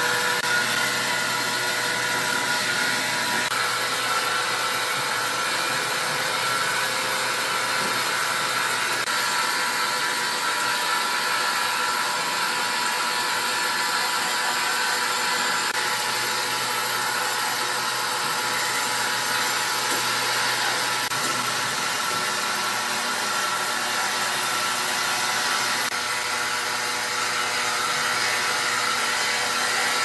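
Horizontal band sawmill running, its band blade cutting lengthwise through a large hardwood log: a loud, steady sawing noise with a faint whine.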